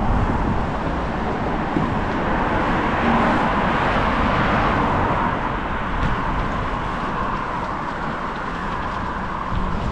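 Road traffic noise heard while cycling, over a steady low rumble. The traffic swells about three to five seconds in, as a vehicle goes by, then fades.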